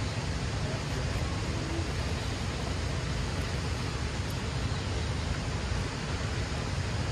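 Steady outdoor rushing noise of wind and river water, with a heavy low rumble.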